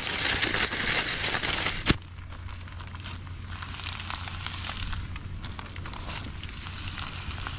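A plastic bag of breadcrumb-coated fish pieces shaken and crinkling for about two seconds, ending in a sharp click. Then bite-sized tailor pieces frying in hot oil, with a steady sizzle and fine crackle.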